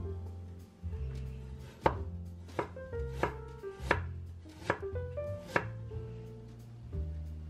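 Chinese cleaver chopping on a bamboo cutting board: six sharp knocks, a little under a second apart, over soft background music.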